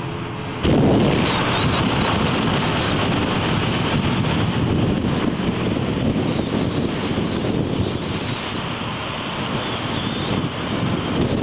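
Wind rushing over the microphone, mixed with road noise from a car driving at speed. It starts suddenly about half a second in and then holds steady.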